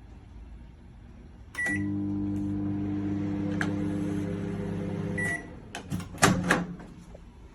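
Sharp R242BKW 800-watt microwave oven: a short beep, then a steady hum for about three and a half seconds while it runs, a beep as it stops, then a few sharp clicks and a louder clunk.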